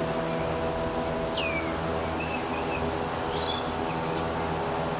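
A steady machine hum, like ventilation fans in an aviary building, runs throughout. Over it, birds call a few times: a short high whistle and a falling whistled note about a second in, then a few soft chirps.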